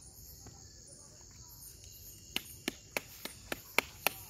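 A bottle of fish-attractant spray being shaken hard, with a sharp rattling click on each stroke, about four a second, starting about halfway in. A faint steady insect trill runs underneath.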